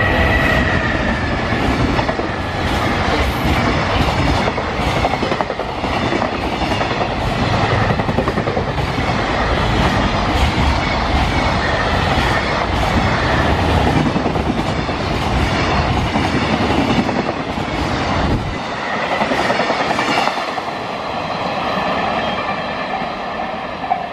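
A JR Freight EF210 electric locomotive and its freight train pass close by, with a dense rolling rumble and a steady clickety-clack of wheels over rail joints. A high steady tone is heard near the start as the locomotive goes by. The low rumble drops away at about 18 seconds as the last wagons pass, leaving a thinner, fading clatter.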